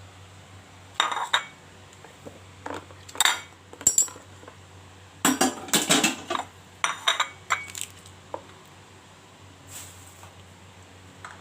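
Utensils and dishes clattering and clinking: a dozen or so sharp, irregular knocks and clinks of metal and crockery, some in quick clusters.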